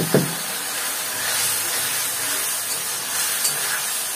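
Ground ginger, garlic and chilli masala paste, loosened with a splash of water, sizzling steadily in a kadhai as it fries, with a brief knock at the very start.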